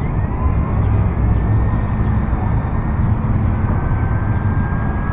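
Electric motor whine of a V922 micro RC helicopter in flight, a thin tone that slides slowly up and down with throttle, under a heavy low rumble that dominates the sound.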